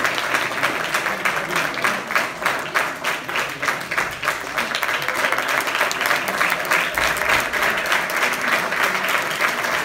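Audience applauding steadily, many hands clapping densely together.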